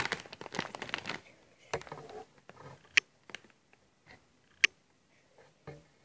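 A plastic crisp packet being handled: about a second of dense crinkling, then a few separate sharp crackles as the bag is shifted in the hands.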